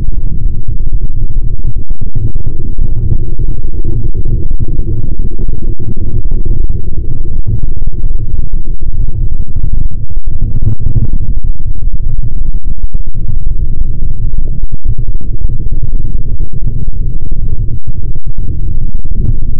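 Loud, distorted electronic noise music: a dense, continuous low rumble with little high end.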